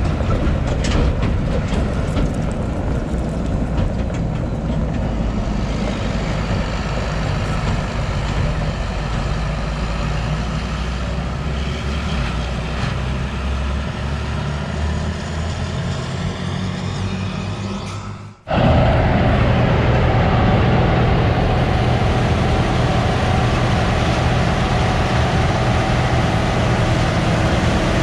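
Diesel engines of heavy harvest machinery running steadily under load. About two-thirds of the way through, the sound cuts out for a moment and comes back louder with a different tone, as from another machine.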